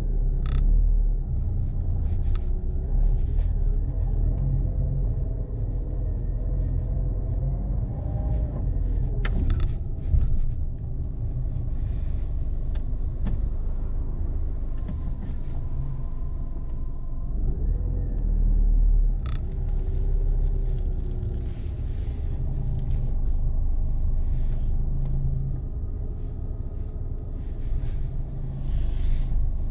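Car engine and road rumble heard from inside the cabin, the engine note rising and falling as the car moves slowly in traffic, with a few sharp clicks.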